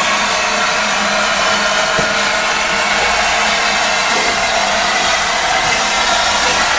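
Steady loud hiss of steam from the open cylinder drain cocks of the LNER A4 Pacific steam locomotive 60009, blowing continuously as the engine moves slowly.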